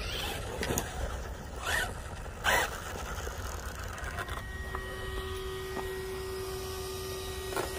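Wind rumbling on the microphone, with a few footfalls rustling in dry grass. About halfway through, a steady high whine starts and holds.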